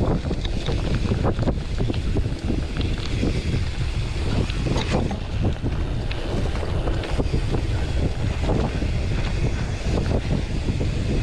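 Wind noise on the bike-mounted camera's microphone with a steady low rumble, and frequent short rattles and knocks as the mountain bike jolts along a bumpy dirt trail.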